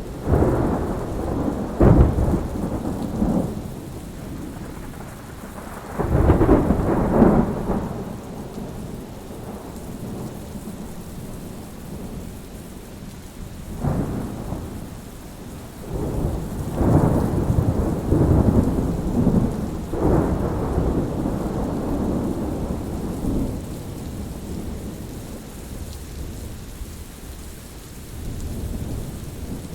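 Thunderstorm: steady rain with repeated rolls of thunder. There is a sharp crack about two seconds in, further rumbles around six and fourteen seconds, and a long rolling rumble through the middle that slowly fades.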